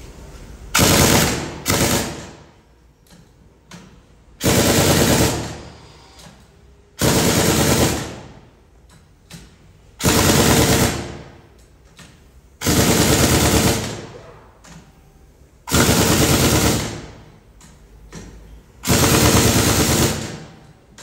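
Pneumatic impact wrench rattling in a series of bursts of about a second each, every two to three seconds. It is running down the bolts as the truck's differential is fitted back in place.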